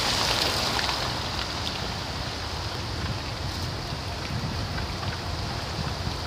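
Steady road traffic noise from a queue of cars crawling on a wet, slushy road: a low engine rumble with tyre hiss on the slush, the hiss easing a little about a second in.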